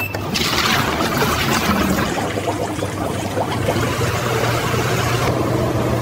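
A short beep from a front-load washing machine's control panel as a button is pressed, then a steady rushing noise over a low hum as the machine runs.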